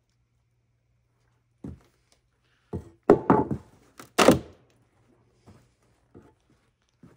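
A series of irregular knocks and thunks, some eight blows, the loudest bunched together around three to four and a half seconds in.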